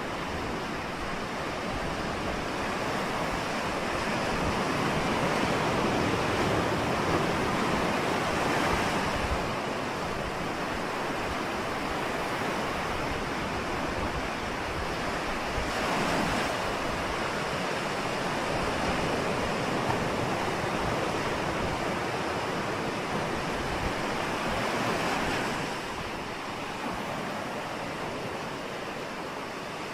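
Ocean waves breaking and washing on the shore, a continuous surf noise that swells and eases slowly over several seconds.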